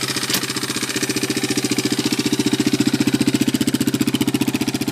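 Honda Fat Cat TR200's single-cylinder four-stroke engine idling steadily with an even, fast pulsing beat, a little louder in the middle. The owner says the valves chatter and the worn piston rings make it burn oil.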